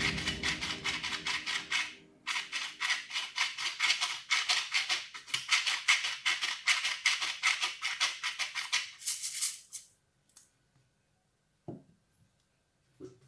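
Stainless-steel pepper mill grinding black peppercorns: a quick run of rasping, crunching twists, with a brief pause about two seconds in. The twists stop about three-quarters of the way through, and a single soft knock follows.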